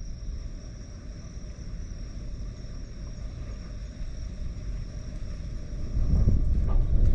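Typhoon wind buffeting the microphone as a low rumble, swelling louder about six seconds in. A steady high insect trill runs underneath until near the end.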